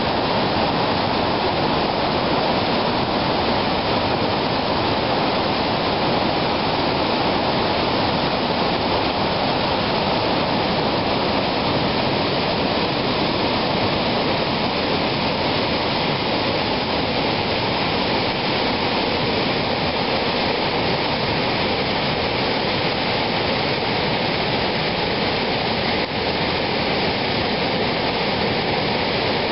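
Lynn Creek's whitewater rapids and cascades rushing over boulders: a loud, steady, even rush of water.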